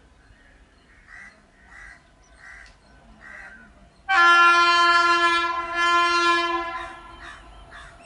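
WAG9 electric freight locomotive's horn sounding one loud, steady blast that starts suddenly about four seconds in and lasts about two and a half seconds. Before it, a crow caws about five times.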